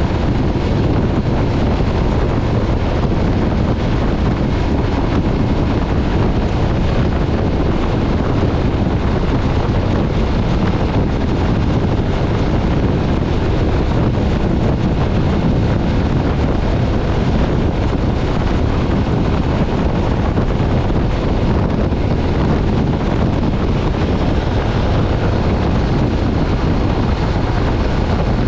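Steady wind rush buffeting the microphone of a motorcycle at speed, with the MV Agusta Stradale 800's three-cylinder engine running underneath.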